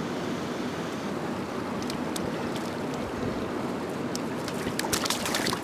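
Steady rushing of wind and surf, with scattered faint ticks and clicks from about two seconds in and a small cluster near the end.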